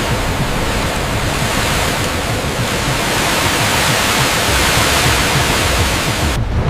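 Steady, loud rushing of water, a hiss with a low rumble beneath, that cuts off abruptly near the end.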